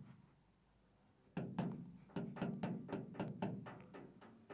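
Marker pen squeaking and tapping on a whiteboard as a word is written: a quick series of short strokes starting about a second and a half in.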